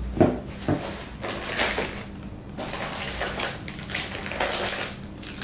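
A couple of sharp knocks as parts are handled, then plastic parts bags and a paper wrapper crinkling and rustling as they are taken out and unwrapped.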